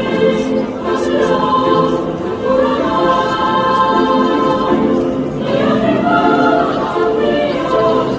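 Girls' high school choir singing in several parts, holding long notes together with a couple of chord changes.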